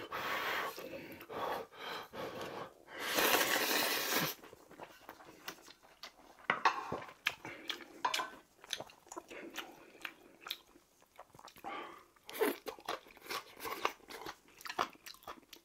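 Close-miked eating: a long breathy slurp of instant ramen noodles about three seconds in, then steady chewing with many crisp crunches, as of raw kohlrabi strips in the bibimbap.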